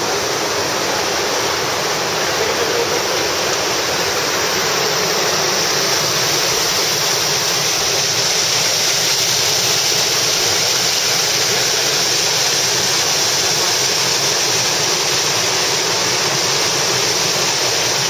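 Waterfall rushing, a loud, steady noise of falling water.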